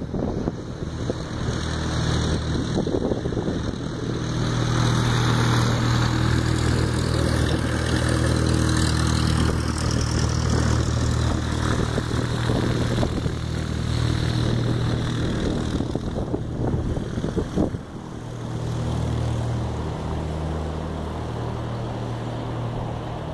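Cessna 172 light aircraft taxiing past at low power, its piston engine and propeller giving a steady low drone. The drone grows louder as the plane passes close, then drops off sharply about three quarters of the way through as it moves away.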